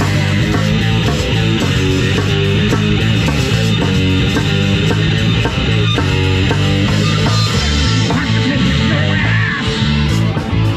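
Live rock band playing loudly: electric guitar and drum kit.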